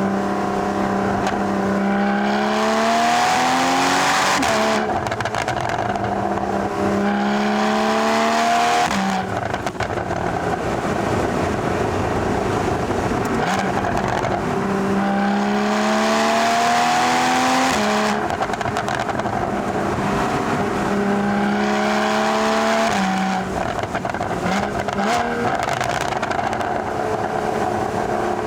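Porsche 981 Boxster GTS's 3.4-litre flat-six accelerating hard, its note rising through each gear and dropping sharply at each upshift, five or so times over, with road and wind rush beneath.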